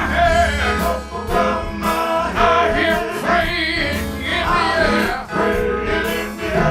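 Gospel song: voices singing over guitar and a steady bass line.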